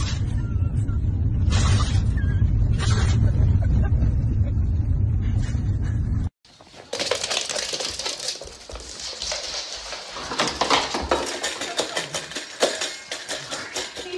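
Steady low road rumble inside a moving car, broken by a few short hissy bursts. It cuts off suddenly about six seconds in, and a dense run of small sharp clicks and knocks follows, from a dog on a wooden floor and at its metal food bowl.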